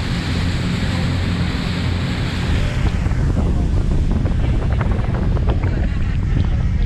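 Dive boat under way: its engine hums steadily beneath wind buffeting the microphone and water rushing past the hull. The rushing hiss falls away about three seconds in, leaving mostly the engine hum.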